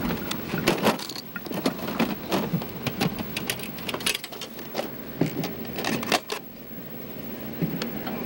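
Irregular knocks and metallic clatter of gear being handled: a Bren light machine gun set down on its bipod and a metal magazine box opened, with magazines lifted out. Footfalls and rustling on dry grass mix in.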